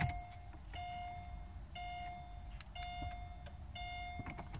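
Mercedes SL's interior warning chime beeping steadily about once a second, each beep a short held tone, with a faint switch click at the start.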